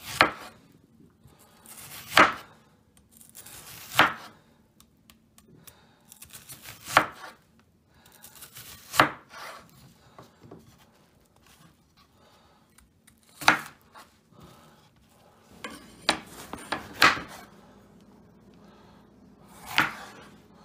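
Chef's knife slicing through an onion and then a green bell pepper on a bamboo cutting board, each cut ending in a sharp knock of the blade on the wood. The cuts come one at a time, about every one to two seconds, with a couple of quicker pairs near the end.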